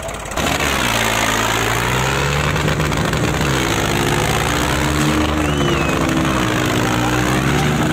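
Preet 955 tractor's diesel engine revving hard under load, its pitch rising and falling repeatedly.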